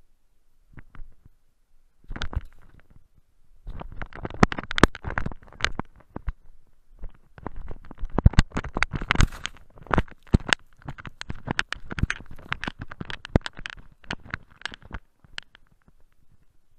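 Snow crunching and scraping close against the camera, an irregular run of sharp clicks and knocks that begins about two seconds in and dies away near the end.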